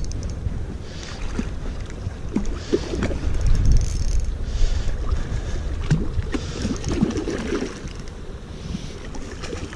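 Wind buffeting the microphone as a steady low rumble, with scattered splashing from a hooked rainbow trout thrashing at the surface close to the bank.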